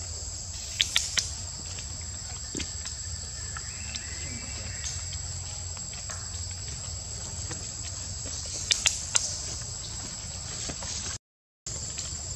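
Forest insects droning steadily at a high pitch, over a constant low hum. Two quick runs of three sharp clicks stand out, about a second in and about nine seconds in. The sound cuts out for half a second near the end.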